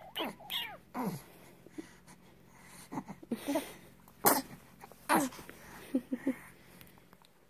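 A two-month-old baby cooing and squealing in short high-pitched bursts that rise and fall in pitch, with a few breathy sounds between them.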